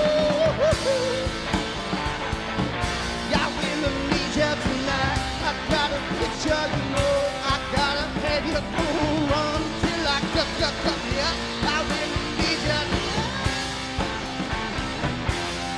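Live rock band playing loudly with electric guitar and drum kit, the guitar bending notes between the sung lines.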